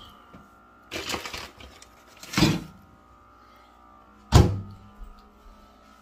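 Three knocks and thumps a second or two apart, the last a sharp thud and the loudest, over a faint steady hum.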